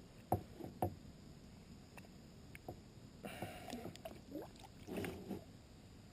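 A few sharp knocks in the first second, then two short bouts of splashing water a few seconds later, typical of handling a fish and boat gear at the waterline.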